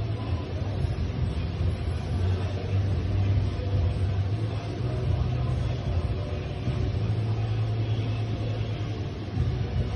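Steady low rumble with a deep hum and no clear events.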